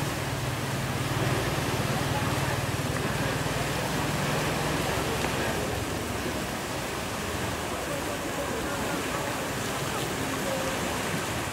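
Steady rush of turbulent water churning below a concrete dam outlet, with a low hum underneath that fades out about five seconds in.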